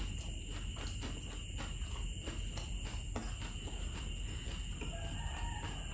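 Chewing a fried bean-sprout spring roll (lumpiang toge): soft, repeated mouth clicks and crunches, over a steady high-pitched whine.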